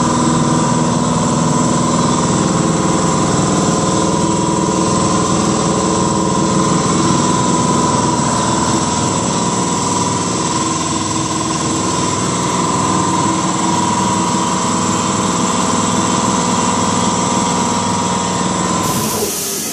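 A motor-driven machine running steadily, a constant hum with a steady whine that does not change in speed. Near the end it gives way to music.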